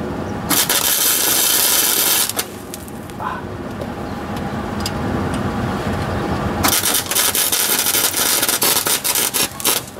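Flux-core wire-feed welder arc crackling in two bursts: a short one of under two seconds near the start, then a longer one of about three seconds near the end. It is tack-welding an exhaust to its hanger rod on metal that was not cleaned first, throwing molten spatter.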